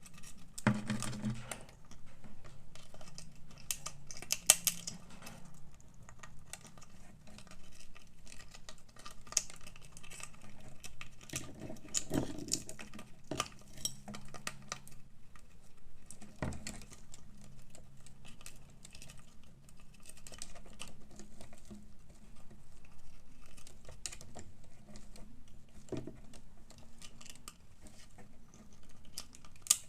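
Parrot's beak gnawing and cracking at a walnut shell: a dense, irregular patter of small clicks and crunches with a few louder cracks.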